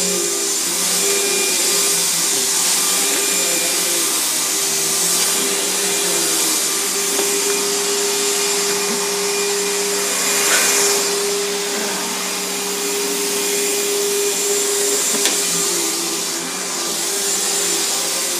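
Riccar 100 bagged vacuum cleaner running steadily while vacuuming, its motor hum wavering slightly in pitch; a brief noise rises over it about ten and a half seconds in.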